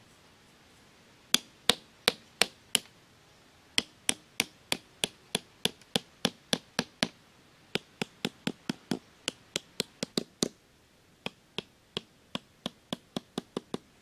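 Small hammer tapping thin bamboo sticks down into sandy ground: four runs of sharp strikes, about three a second, with short pauses between runs.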